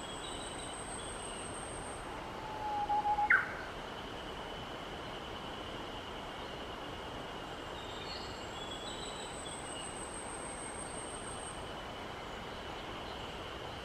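Japanese bush warbler singing once about two and a half seconds in: a long, low whistled note swelling in loudness, ended by a sharp, quick higher note. Faint, steady high-pitched tones hang in the background throughout.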